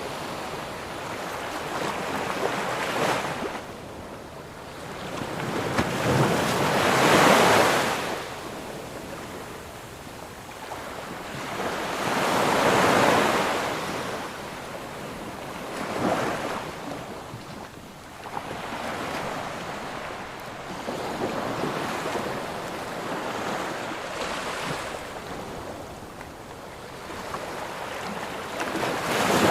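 Ocean waves breaking and washing up onto a sandy beach, each surge swelling and fading, with the loudest breakers about 7 and 13 seconds in. Wind buffets the microphone.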